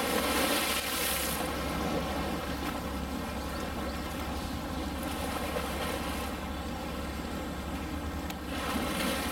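Steady mechanical drone with a rushing wash of noise over it, the rush louder in the first second and again near the end.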